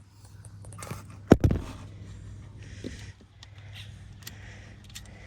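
Handling noise: one sharp knock about a second in, followed by a few light clicks and rattles.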